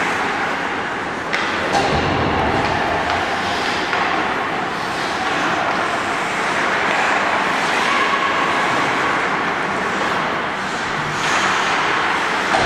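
Indoor ice rink ambience: a steady hiss of skates on the ice, with a few sharp clicks of sticks and puck.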